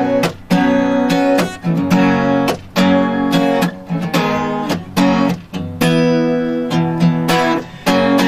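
Acoustic guitar strummed in a steady rhythm of chords, each stroke ringing on into the next: the instrumental intro of a song.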